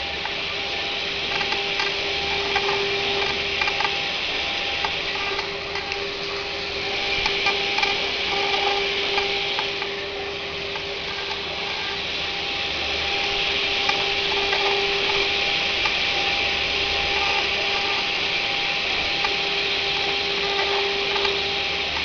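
CNC stone engraving machine's spindle running with a steady tone while its carving bit grinds into stone, a continuous gritty scraping that swells and eases a little.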